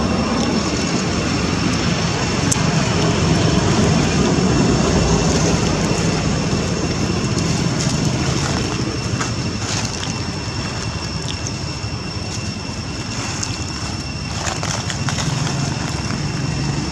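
Steady outdoor background rumble, heaviest in the low range, with a thin steady high whine running above it; it eases off a little in the middle.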